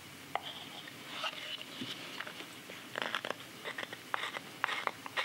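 Straight carving knife shaving green sycamore wood: a series of short cutting strokes, sparse at first and coming more often from about halfway through.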